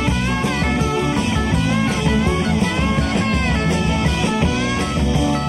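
Live rock band playing an instrumental stretch: electric lead guitar with bending notes over bass, drums and keyboards.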